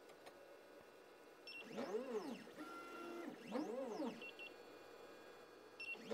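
Geeetech E180 3D printer's stepper motors moving the axes twice: each move whines up in pitch as the motor speeds up and back down as it slows, and a third move starts near the end. These are positioning moves during build-plate levelling. Short high beeps sound between the moves.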